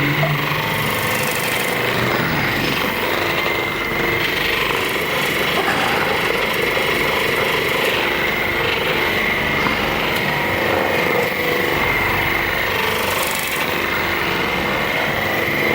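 A small electric motor running steadily, a rough mechanical buzz with a constant high whine over it.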